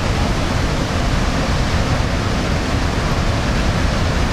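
Niagara Falls: a loud, steady rush of water pouring over the falls, an even roar with no breaks.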